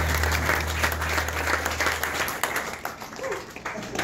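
Audience applauding at the end of a song, the clapping thinning out and growing quieter toward the end. Under it, a low hum from the sound system fades out about two seconds in.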